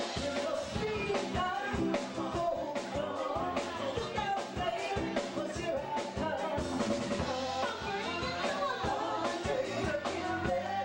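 Live band playing, with singing into microphones over a drum kit keeping a steady beat.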